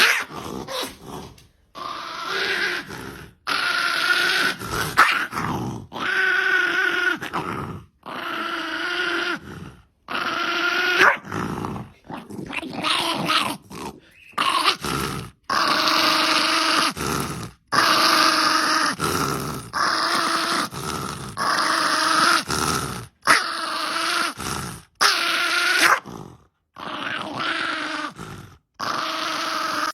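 A dog vocalizing in drawn-out, pitched growling and whining calls, one after another, each cut off abruptly.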